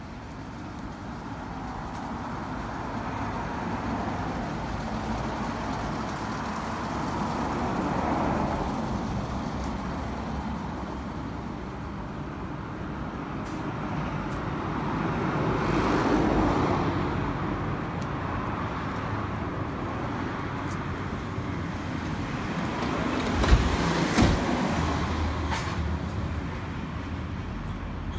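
Street traffic: road vehicles pass one after another, the noise swelling and fading about three times, with two sharp low thumps close together near the end.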